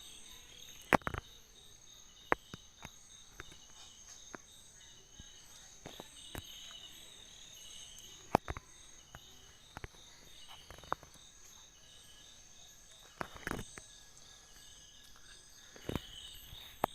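Steady pulsing chorus of crickets, with scattered sharp clicks and taps from the fishing line, pop-up float and hook being handled while the rig is tied.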